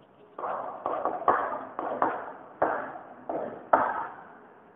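Chalk writing on a blackboard: a run of about nine sharp taps and scrapes, each stroke starting suddenly and fading quickly.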